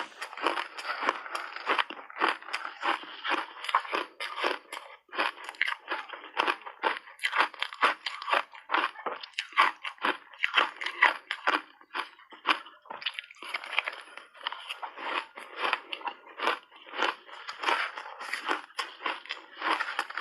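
A person crunching and chewing refrozen shaved ice in big bites: dense, rapid crackling crunches with a few short pauses between mouthfuls.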